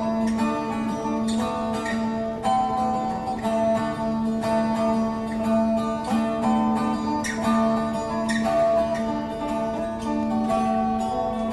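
Background instrumental music with plucked strings over a steady low drone, the notes changing about once a second.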